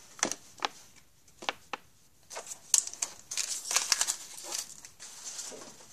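Hockey card pack wrapper crinkling and rustling as it is handled and opened, after a few light clicks of cards being set down.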